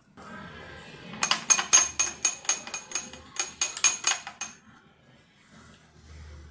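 A wooden stick scraping and tapping against a small glass beaker, making about a dozen quick glass clinks, about four a second, as a thick glycerin and xanthan gum gel is worked out of it. There is a short scrape before the clinks, and they stop about halfway through.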